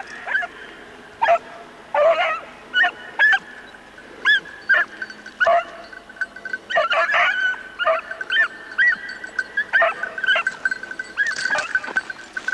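Hunting beagle giving tongue in short, irregular bays and yelps while working to flush a hare from cover. A thin steady high tone runs behind the calls in the second half.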